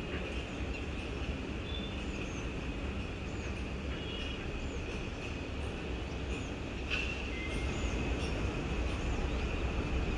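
Steady low rumble of distant city traffic, with short high bird chirps repeating about once a second over it. The rumble gets slightly louder past the middle.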